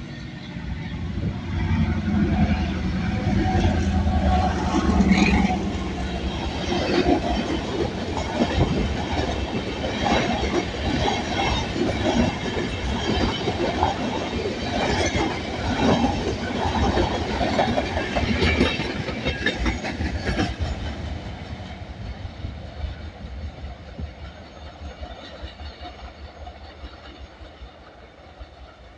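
CRRC diesel-electric freight locomotive passing close with its engine running low, followed by a string of empty sand hopper wagons rattling and clattering over the rails. The clatter fades steadily over the last several seconds as the train moves away.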